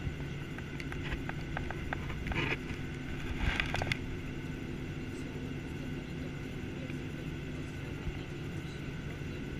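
Boeing 737-800 cabin noise while taxiing: the CFM56 jet engines idle with a steady hum and a few held tones over a low rumble. A few light clicks and two short rustling bursts come between about one and four seconds in.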